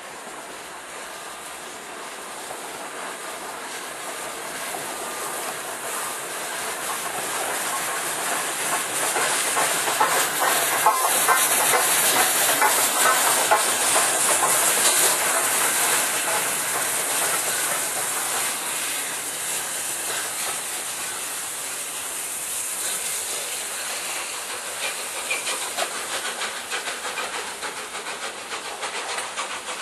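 LNER A4 Pacific steam locomotive No. 60019 Bittern running slowly past with its support coach: hissing steam and a rhythmic clatter. It grows louder to a peak about twelve seconds in as it goes by, then fades as it draws away.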